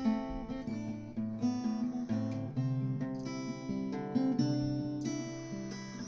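Acoustic guitar playing a repeating picked chord pattern, the chords changing every second or two.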